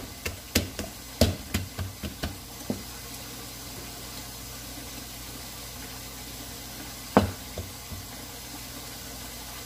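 Sharp pats of floured hands on soft bread dough, a quick run of about nine in the first three seconds and two more about seven seconds in, over the steady hiss of a kitchen tap left running.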